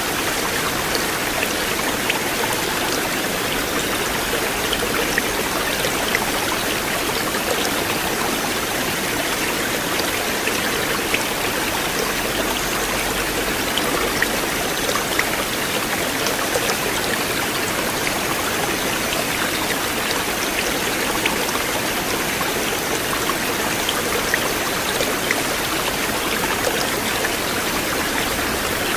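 River water flowing steadily, an even rush with many small splashes and drips scattered through it.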